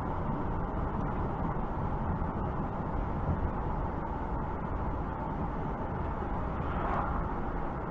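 Steady road and engine noise of a car cruising at about 45 mph, heard from inside the cabin, with a brief swell near the end.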